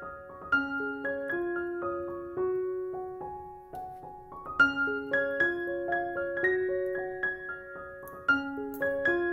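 Background piano music: a slow melody of single notes over a low note restruck about every four seconds.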